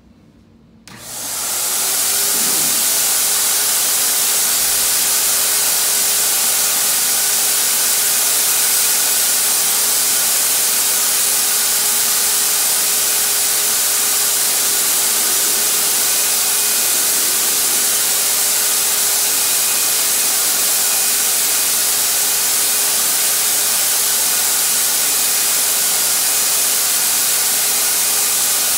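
Harbor Freight HVLP turbine paint sprayer switched on about a second in, spooling up over about a second to a steady loud rushing hiss with a steady hum underneath, its turbine blowing air through the spray gun as paint is sprayed.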